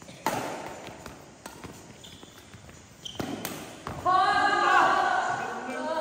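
Badminton rackets striking a shuttlecock, four sharp knocks about a second apart, with short squeaks of court shoes on the floor in between. From about four seconds in, players' voices call out loudly as the rally ends.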